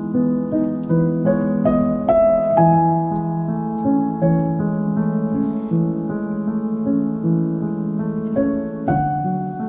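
Background piano music playing slow, sustained notes over a steady lower accompaniment.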